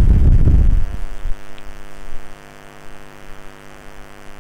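Loud low rumble of a clip-on microphone rubbing and bumping against the wearer's shirt for about a second, then a few softer knocks, over a steady electrical mains hum.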